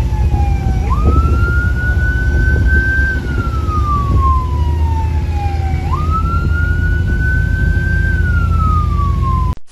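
Marine police patrol boat's siren wailing in slow sweeps: the pitch slides down, then jumps back up and climbs. This happens twice, about five seconds apart. Under it runs the loud, steady rumble of the boat's engines at full speed. All sound cuts off abruptly just before the end.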